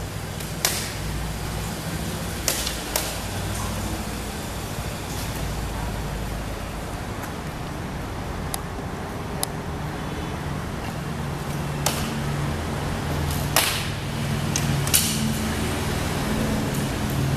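Bowstrings snapping as arrows are loosed from a line of bows: sharp single cracks at uneven intervals, about half a dozen loud ones and a few fainter, over a steady low hum.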